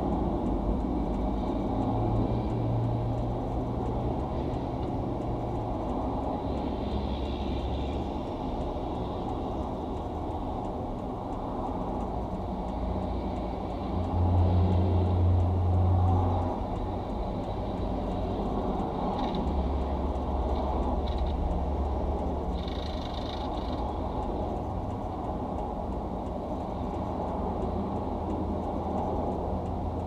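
Steady freeway traffic passing, a low rumble of tyres and engines. About halfway through, a heavy truck's engine hums louder as it goes by.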